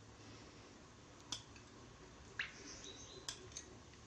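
Faint clinks of a metal spoon scooping coconut oil from a glass bowl into a clay pot: four or five short, sharp ticks over a quiet background.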